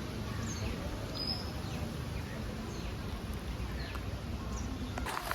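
Outdoor background noise with a few faint, short bird chirps, and a couple of soft clicks near the end.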